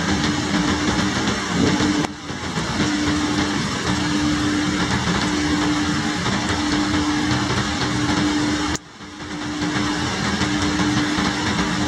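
Heavy tropical downpour, a steady dense hiss of rain, with a steady low mechanical hum underneath. The sound dips suddenly twice and swells back.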